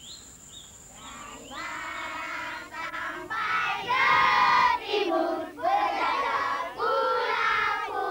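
A group of Indonesian children singing together, loud and a little ragged, in a patriotic song about independent Indonesia. It begins about a second and a half in, after a moment of faint chirping.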